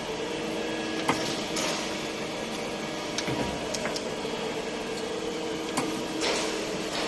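1987 Nicco NSG-64H surface grinder running, a steady motor hum with scattered clicks and knocks, the loudest about a second in and near the end.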